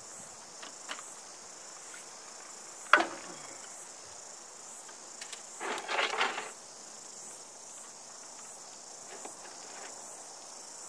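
Insects chirring steadily in a high, even drone. There is one sharp click about three seconds in and a short clatter around six seconds.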